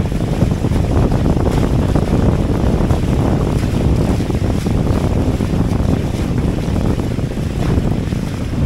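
Steady wind rumble on the microphone, over water rushing and splashing along the hulls of a Hobie Cat 18 catamaran under sail.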